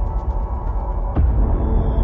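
Dark background music with a steady low drone and sustained tones, with a single sharp hit a little after a second in.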